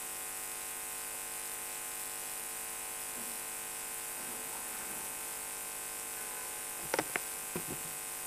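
Steady electrical buzz and hiss from the sound system, with a few brief knocks about seven seconds in.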